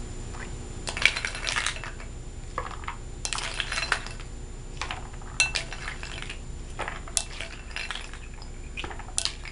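Ice cubes clinking against a glass bowl as they are scooped with a plastic spoon and tipped into a pitcher of parsley water, in several separate bursts of clatter.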